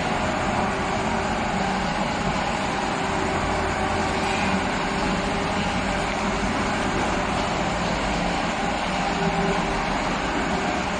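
Thermal paper-to-film laminating machine running: a steady mechanical hum and rumble with a few faint held tones.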